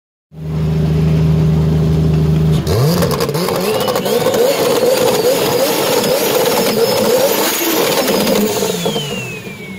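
A tuned car engine idling, then revved hard from about two and a half seconds in, its pitch swinging up and down with pops and crackles from the exhaust. Near the end a high whine falls away and the engine settles back to idle.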